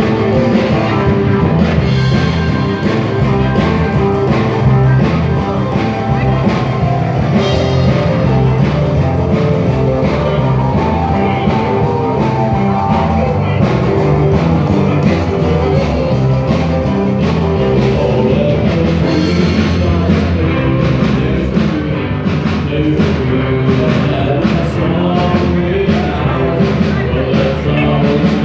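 Live rock and roll band playing a song: drums, guitar and bass at a steady beat, with singing.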